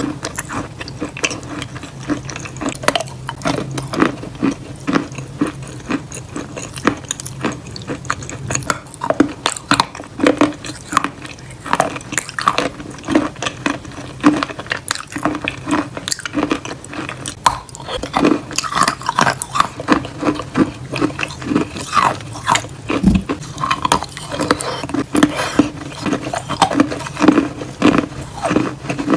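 Close-up wet, sticky mouth sounds of eating creamy soaked chalk paste off a spoon: lip smacks and squelchy chewing, heard as a steady stream of small clicks and pops.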